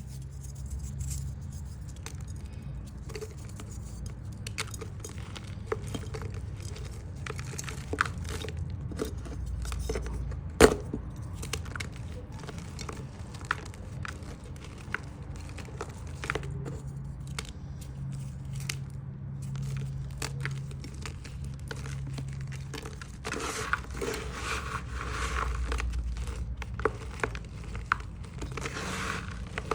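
Crunchy chalk being broken and crumbled: a run of crisp snaps and crackles, with one sharp snap about a third of the way in and denser crumbling near the end.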